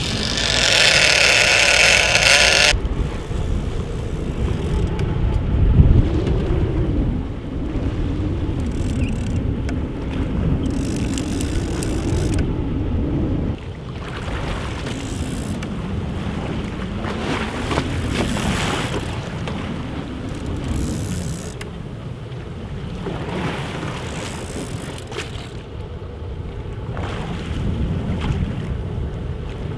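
Fishing boat's engine running, with wind buffeting the microphone and water rushing past the hull; the engine's pitch rises and falls. A loud rushing hiss fills the first few seconds and cuts off suddenly.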